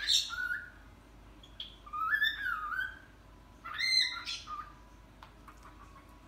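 Cockatiel calling: three short whistled phrases that glide up and down in pitch, one at the start, one about two seconds in and one about four seconds in.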